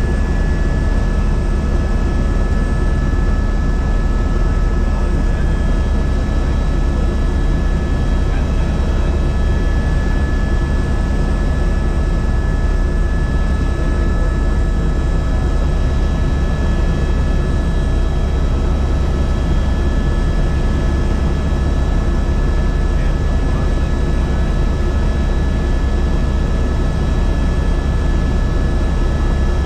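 Helicopter running steadily: a loud, constant drone with a faint steady high whine above it.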